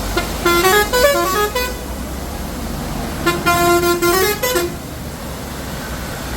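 A musical vehicle horn plays a short stepping tune twice, with a pause of about a second and a half between the phrases, over a steady rushing noise.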